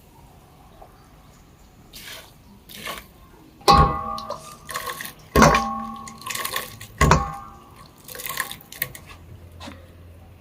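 Hot pot broth being ladled and poured into a bowl of dipping sauce, with splashing and dripping, and three ringing clinks of the ladle striking the rim, about a second and a half apart.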